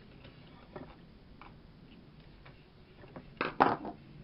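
Light clicks and taps of hands and a screwdriver working on the heat gun's opened plastic housing and wiring, with a short louder rattle of clicks about three and a half seconds in.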